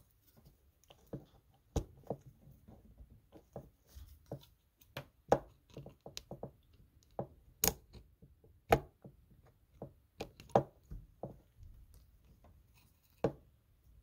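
Hands working fuel hoses and clamps onto a snowmobile fuel pump: an irregular string of small clicks and knocks, with a few sharper snaps among them.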